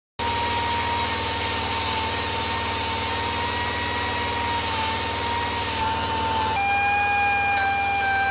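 A motor running steadily with a thin, high whine over a low drone. The whine drops a little in pitch about two-thirds of the way through.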